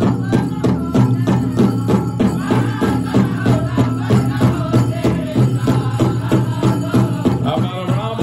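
Powwow drum group singing a chicken dance song in high chanting voices over a fast, even beat on a large hand drum.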